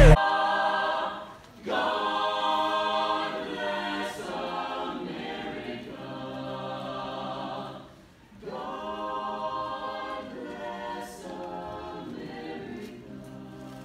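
Small mixed a cappella vocal ensemble singing in close harmony, men's and women's voices together with no instruments. The phrases break off briefly about a second and a half in and again about eight seconds in.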